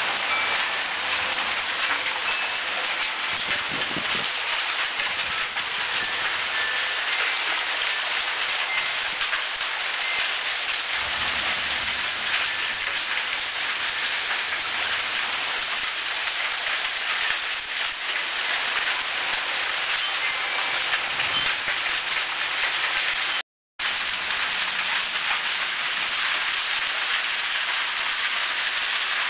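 Torrential wind-driven rain from a severe thunderstorm, a loud, dense, steady hiss. It drops out for a split second about three quarters of the way through.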